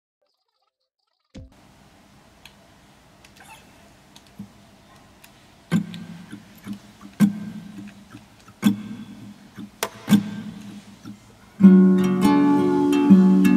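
Background music on acoustic guitar: after a short silence, single plucked notes come every second or so, and fuller strummed chords start near the end.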